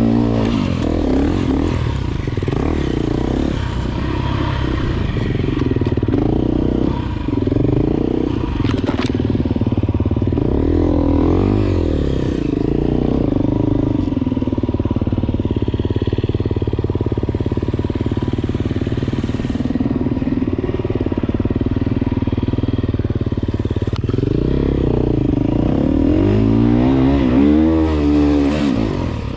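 Enduro motorcycle engine ridden hard on a trail, the revs rising and falling again and again with throttle and gear changes, with some clatter from the bike.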